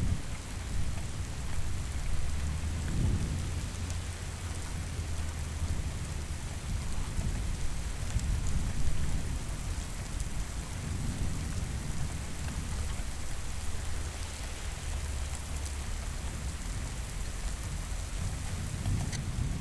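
Steady rain falling, with low rolling thunder rumbling underneath that swells and fades several times.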